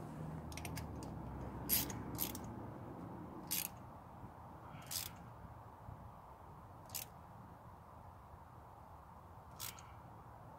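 Sharp, separate clicks and light knocks, about seven of them, from tools and parts being handled on top of the engine during a spark plug change. A faint low hum runs under them for the first few seconds.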